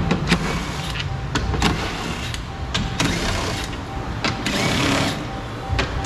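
Cordless drill running in short bursts as it backs screws out of a pickup's door frame, with clicks of the tool against the metal. Music plays in the background.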